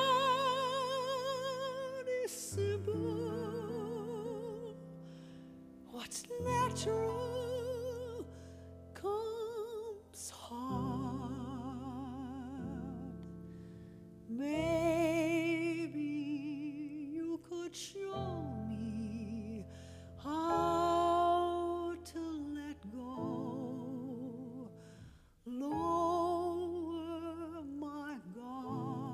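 A woman singing a slow show-tune ballad with a wide vibrato on long held notes, phrase by phrase with short breaks, over sustained piano chords.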